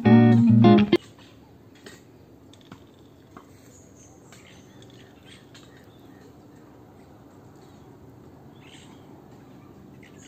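Guitar music that cuts off abruptly about a second in, then faint outdoor ambience with birds chirping now and then and a few faint clicks.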